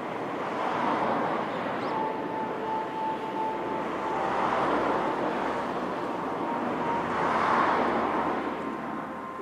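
Road traffic passing a level crossing: cars going by one after another, their tyre and engine noise swelling and fading about three times.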